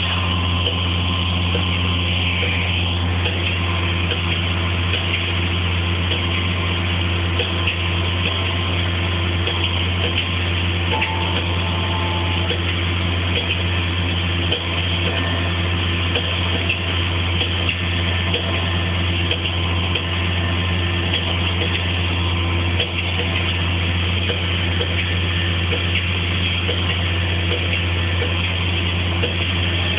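Tractor diesel engine running at a steady speed while pulling a loaded silage trailer, a constant low drone with no change in pitch.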